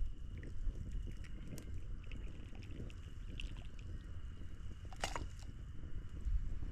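Wood campfire crackling with scattered small pops and one sharper crack about five seconds in, over a low steady rumble.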